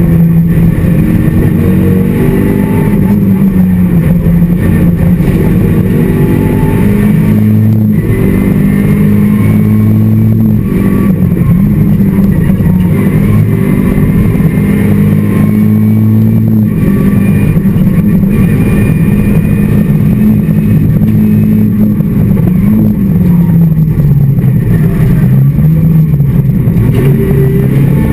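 Skoda Felicia rally car's engine heard from inside the cabin, run hard at stage pace. The pitch keeps rising and falling as it revs up through the gears and drops back, with several deeper swoops near the end as it slows and picks up again.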